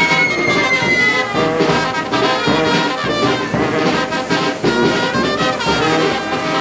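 Brass band music playing, with a high whistle that glides down in pitch and fades out in the first second or so.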